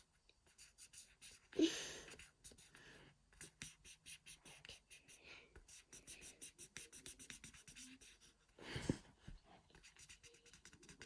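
Faint scratchy strokes of a Crayola Color Wonder mess-free marker scribbling quickly back and forth on the colouring-book paper, with two louder brief noises, one near the start and one near the end.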